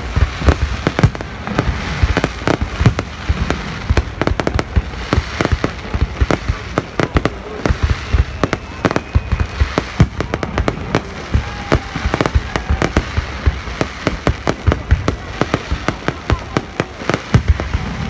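Fireworks display: a dense, unbroken barrage of booming bursts and crackles, several bangs a second throughout.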